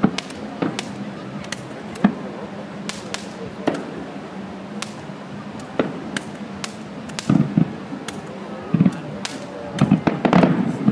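Fireworks going off: irregular sharp bangs and pops, with heavier booming bursts coming closer together in the last few seconds.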